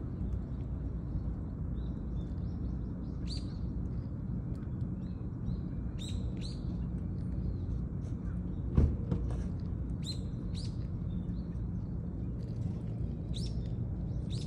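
Small birds chirping in short, high calls every few seconds over a steady low outdoor background rumble. A single sharp knock about nine seconds in is the loudest sound.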